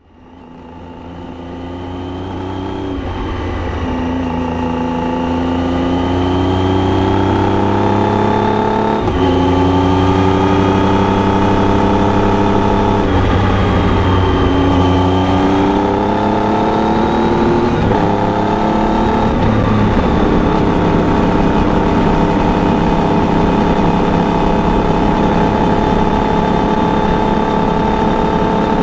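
Triumph Tiger 800 inline three-cylinder engine through an Arrow aftermarket exhaust, heard while riding. It fades in, then pulls up through the gears: the engine note climbs and drops back with each upshift, about five times. It then settles into a steady cruise.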